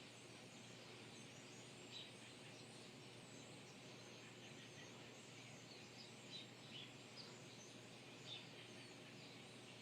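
Faint, scattered short bird chirps over a steady background hiss, a few calls about two seconds in and a cluster in the second half.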